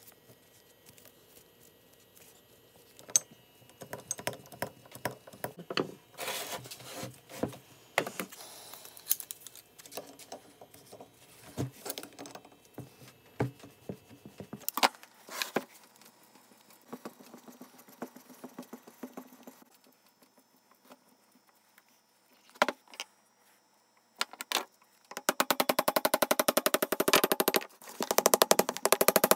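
Scattered metal clicks, clinks and knocks of workshop work on a seized, rusted bottle jack. About 25 seconds in, a loud, rapid, even rattle of closely spaced strikes starts.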